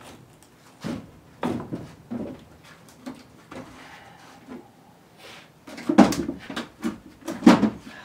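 Old wooden-framed window sashes knocking and clunking as they are lifted and leaned against a stack, mixed with footfalls on wooden loft boards; the loudest clatter comes about six seconds in and again near the end.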